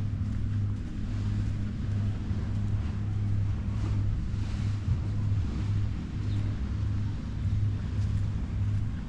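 Low wind rumble on an action camera's microphone, swelling and dropping every half second or so, over the steady hiss of small waves on the shore.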